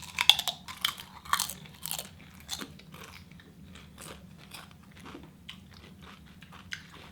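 Crunchy food being bitten and chewed, with several loud crunches in the first two and a half seconds, then quieter, steady chewing.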